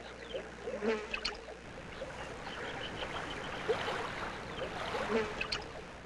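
Nature ambience: a steady wash of gently moving water with insects buzzing and scattered short chirps and croaks.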